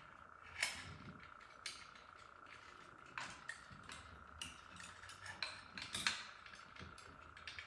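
Scattered light clicks and rustles of hands pushing a stripped wire into a push-in wire connector and handling the wires and junction box, over a faint steady high whine.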